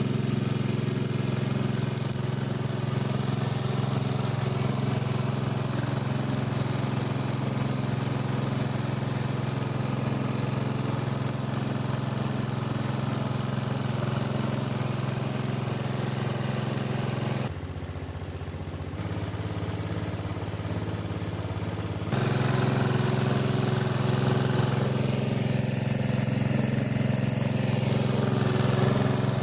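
Small engine of a 3-inch Alkon-type water pump running steadily. About two-thirds of the way through the sound turns quieter and duller for about four seconds, then comes back a little louder.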